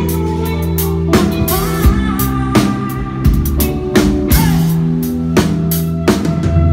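Live rock band playing: drum kit strikes over sustained bass and guitar chords, loud and continuous.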